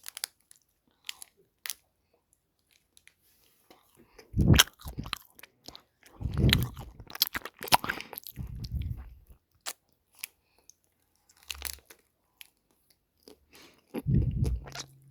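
Close-miked crunching bites and chewing of a Wild Bar, in separate bursts with quiet gaps between them: one bite about four and a half seconds in, a run of crunchy chews from about six to nine seconds, and another bite near the end.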